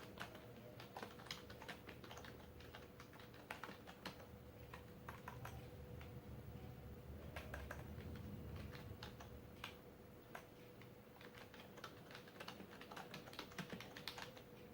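Typing on a Logitech K480 Bluetooth keyboard: quick, irregular, faint key clicks as notes are typed.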